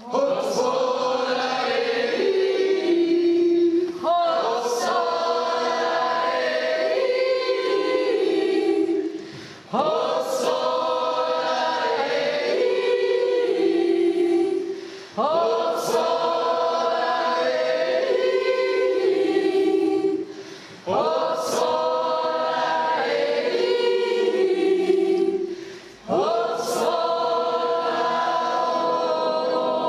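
Choir of young women and a few young men singing together, in phrases of about five seconds with a short break between each.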